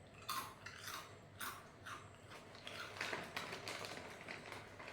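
A person chewing crunchy coconut-biscuit bites close to the microphone: a run of sharp, dry crunches, about two to three a second.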